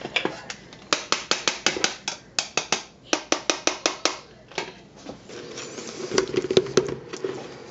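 Rapid runs of sharp taps and knocks as ground clay cat litter is knocked out of an upturned electric blade coffee grinder into a plastic tub, several taps a second in short groups for about three seconds.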